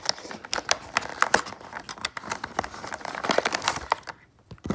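Toy packaging being handled and pulled at, crinkling and crackling in quick irregular clicks, with a short lull near the end.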